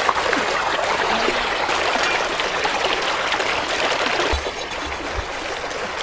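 Shallow stream rushing and splashing over rocks: a steady, dense rush of water that turns quieter about four seconds in.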